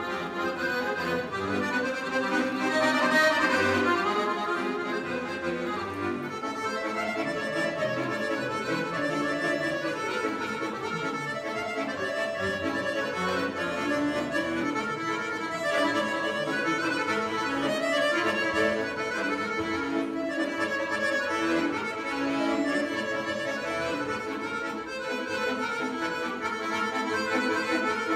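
Piano accordion played solo: a tune of many quick notes over steady bass, with no pause.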